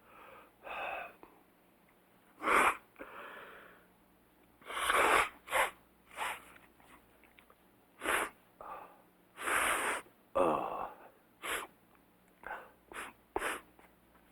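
A person blowing their nose over and over: about a dozen short and longer noisy blasts through the nose, separated by pauses. One blast near the middle carries a brief falling honk.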